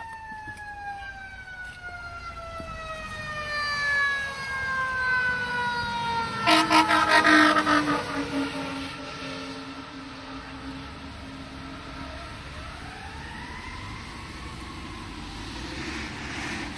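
A fire ladder truck goes by with its siren sounding, the pitch falling slowly. As it passes, about six and a half seconds in, comes a loud burst of rapid pulsing horn blasts, then a steadier lower tone. Near the end the siren rises and falls once more.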